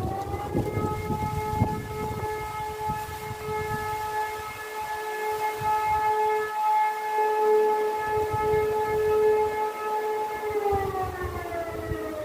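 E57 electromechanical siren at full speed, holding one steady tone for about ten seconds, then winding down with falling pitch near the end. This is one of the sustained tones of the German "Feueralarm" test signal. Wind rumbles on the microphone underneath, most at the start and end.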